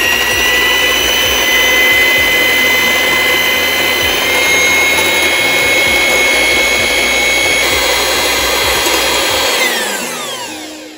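Electric hand mixer running steadily with a high whine, its beaters whisking hot milk into froth. Near the end the motor winds down, the whine falling in pitch as it fades.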